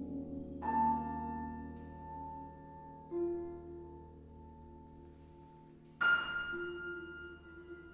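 Quiet contemporary chamber music for flute, clarinet, harp, piano and vibraphone: sustained notes ring and slowly fade, with fresh struck chords entering about a second in, again around three seconds, and a louder, brighter one near the end.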